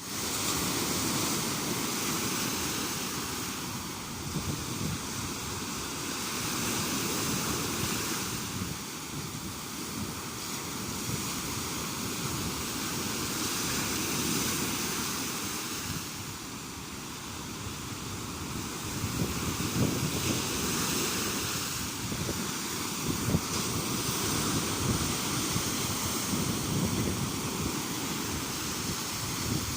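Sea waves washing ashore in a steady rush that swells and eases every several seconds, with wind buffeting the microphone.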